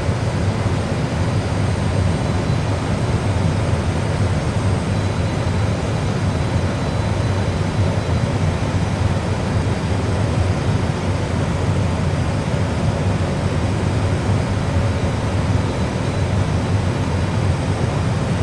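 Steady low rumble of simulated flight-deck noise from an Airbus A320 full flight simulator's sound system: airflow and engine sound, even and unbroken.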